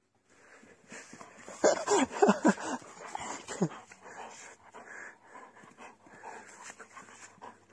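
Irish setter giving about five short whining calls in quick succession, each falling in pitch, then panting and snuffling with mouth noises as it play-mouths a person's hand.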